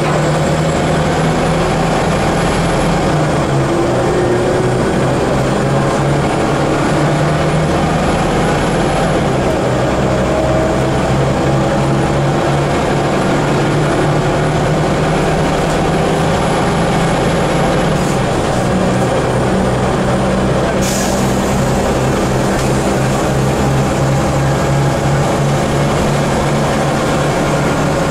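Scania L94UB city bus heard from inside the passenger cabin while under way: its diesel engine runs steadily, with drivetrain whines rising in pitch as the bus gathers speed. A short hiss of air sounds about three-quarters of the way through.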